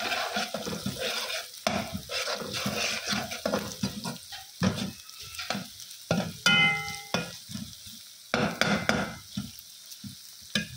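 A steel spatula scrapes and stirs chopped onions with garlic and ginger paste as they fry in oil in a metal pan, with an irregular scrape and clatter over a steady sizzle. About six and a half seconds in, there is a brief ringing clink of metal on metal.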